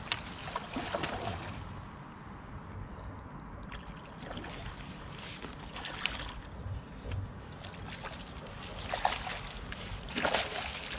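Water sloshing and splashing in the shallows at a river's edge, in three bursts of a second or two, over a low steady rumble.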